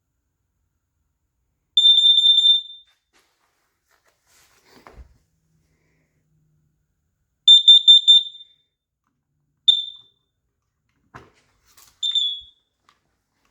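Kidde KN-COB-DP2 alarm's horn sounding under test: two bursts of rapid, high-pitched beeping about a second long each, then two shorter beeps near the end. Faint clicks of handling fall in between.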